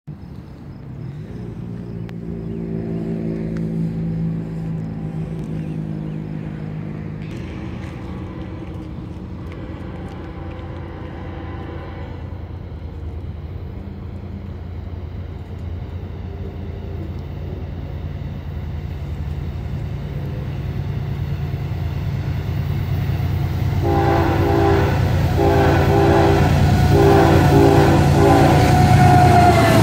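Nathan K5HL five-chime air horn on a Norfolk Southern GE ES44AC locomotive being played. It holds a long chord for the first dozen seconds, gives two short taps, then a string of short blasts near the end. Underneath, the locomotive's diesel engine rumbles and grows louder as the train approaches.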